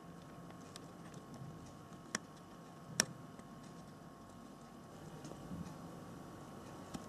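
Quiet room tone with a faint steady hum and a few isolated sharp clicks, the loudest about three seconds in.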